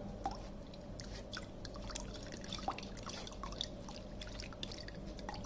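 A steel spoon stirs and presses wet mashed bael (wood apple) pulp against a plastic mesh strainer, giving soft scattered clicks and wet squishing as the juice drips through.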